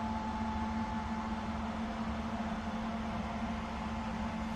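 Steady mechanical hum: a constant low drone with a fainter, higher steady tone above it, over a light even hiss, unchanging throughout.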